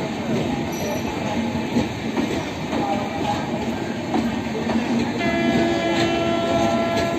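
Passenger train running on the rails with a steady dense rumble and rattle of wheels on track, and a train horn sounding for about two seconds near the end.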